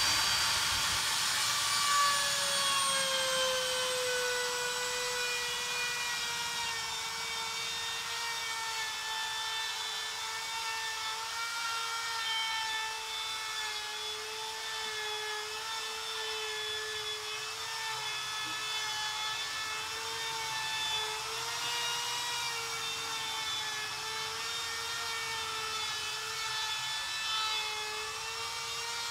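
Handheld electric router running with a steady whine as it cuts a groove along an aluminium composite panel. Its pitch drops over the first few seconds, then wavers slightly as the machine is pushed along the cut.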